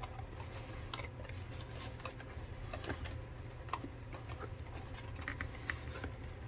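Soft taps and light scraping of handmade paper mini books being slid one by one into a small paper bookcase, a few faint clicks scattered through, over a steady low hum.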